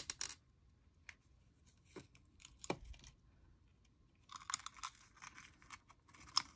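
Faint handling sounds of paper crafting on a desk: a few sharp clicks and taps, then short spells of paper rustling and crinkling about four seconds in and again near the end.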